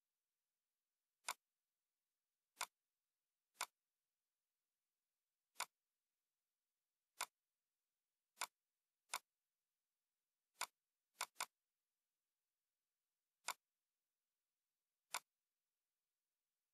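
Computer mouse clicks, about a dozen sharp single clicks at irregular intervals, with a quick double click about eleven seconds in.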